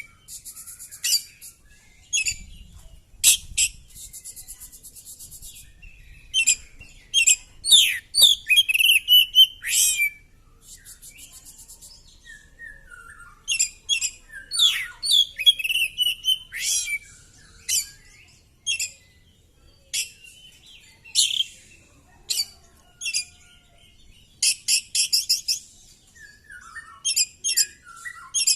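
Oriental magpie-robin (kacer) singing a fast, varied song of sharp high notes, gliding whistles and buzzy rattles, delivered in bursts with short pauses between them.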